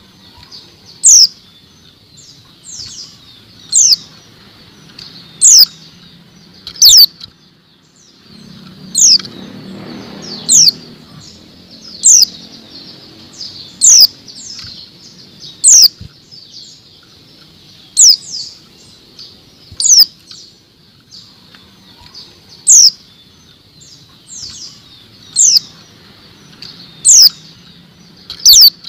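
Female white-eye (pleci) calling: short, sharp, high notes that sweep downward, repeated every couple of seconds, with fainter notes in between.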